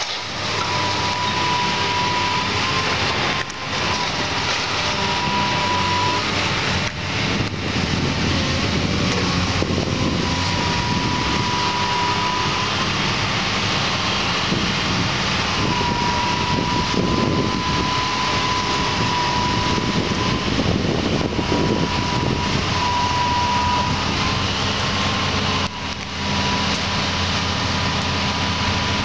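Case tracked excavator's diesel engine running steadily under load, with a wavering high whine that comes and goes every few seconds.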